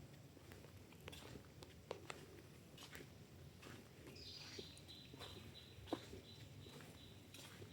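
Faint forest ambience with scattered light ticks and clicks. About four seconds in, a thin, high-pitched animal call begins, slides down a little and then holds one steady pitch.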